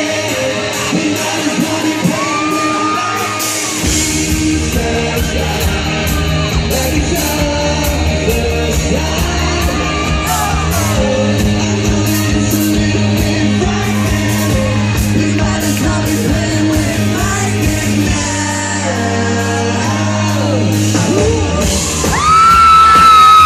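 Live pop-rock band playing in a large hall, with vocals and fans yelling over the amplified music. A heavy bass line comes in about four seconds in. Near the end a loud, high voice holds a single note.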